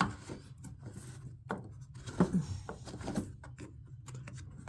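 Scattered plastic clicks and light knocks as the drain filter cap of a Samsung washing machine is twisted counterclockwise to loosen it.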